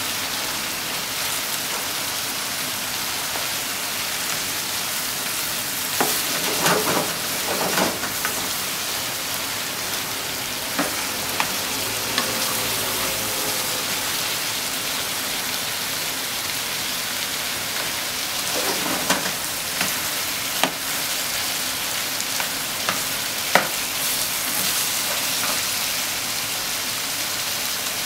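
Ground pork, sliced eggplant and onion sizzling steadily in a frying pan, with a spatula now and then scraping and knocking against the pan as the food is turned.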